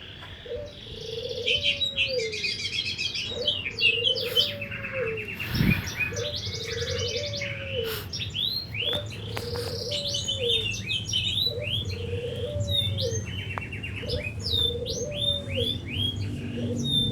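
Spotted dove (tekukur) cooing a deep, bassy phrase over and over, about every two seconds, each ending in a falling note. Small birds chirp and trill in the higher range throughout.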